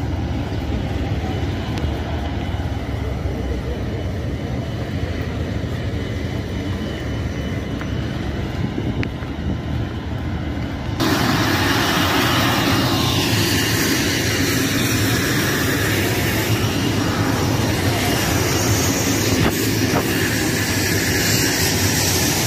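Steady low rumble of engines. About eleven seconds in it jumps abruptly to a louder, hissier steady noise.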